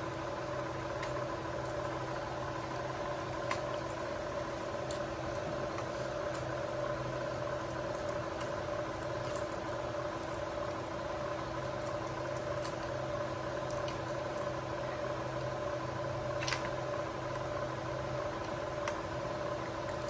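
Steady hum with several fixed pitches throughout, with scattered light clicks and a faint jangle of a small metal keyring and a plastic remote control being handled.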